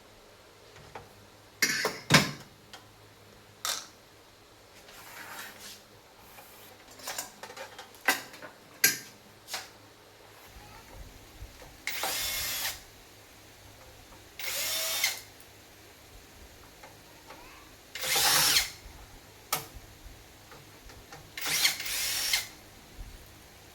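Power drill running in short bursts of half a second to a second, about five times, with knocks and clicks of parts being handled between the bursts.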